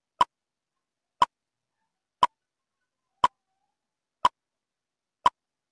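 Countdown timer sound effect ticking once a second: six sharp, evenly spaced ticks with silence between them.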